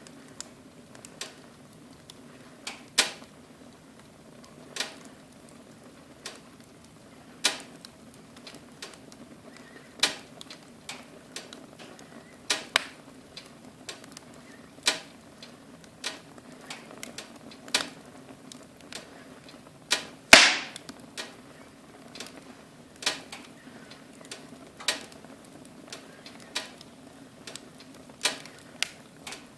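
Wood fire crackling in a fireplace: irregular sharp pops and snaps, one to three a second, over a faint steady background, with one much louder pop about twenty seconds in.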